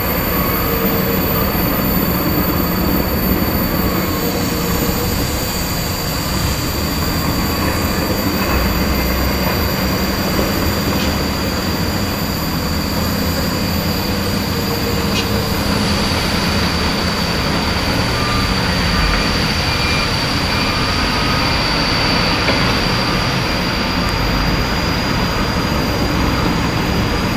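Heavy diesel dump truck traffic rumbling steadily, with a steady high thin whine running above the rumble.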